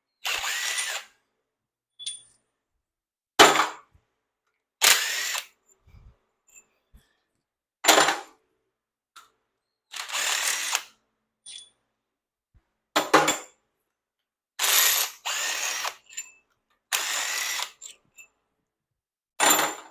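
Handheld power tool, drill-like, run in about nine short bursts of half a second to a second each. Its motor pitch rises and falls within each burst, as when spinning loose bolts during an engine teardown.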